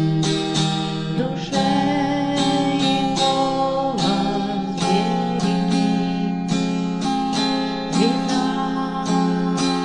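Music: acoustic guitar strummed in a steady rhythm, about two strokes a second, with the chords ringing on between strokes.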